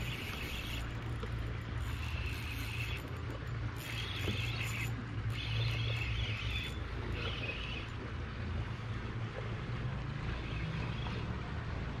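Steady low hum of a boat engine running, with a higher hiss that comes and goes in stretches of about a second.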